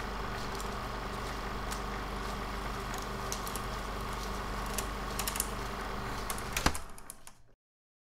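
Old-film sound effect: a steady hiss and low hum with scattered, irregular crackles and pops. It fades out to silence about seven and a half seconds in.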